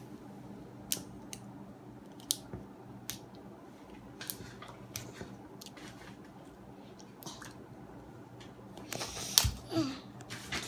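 Plastic toy packaging being handled and torn open: scattered sharp crinkles and snaps, growing busier near the end with one louder knock about nine seconds in.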